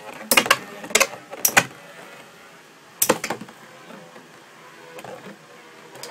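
Two Beyblade spinning tops spinning in a plastic stadium, giving a steady light whirr, broken by a run of sharp clacks in the first few seconds as they collide and knock against the stadium.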